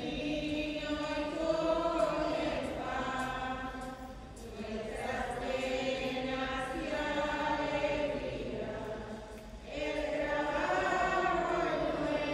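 Voices singing a slow hymn in long held phrases, with short breaks about four and a half and nine and a half seconds in: the offertory hymn sung while the gifts are prepared at Mass.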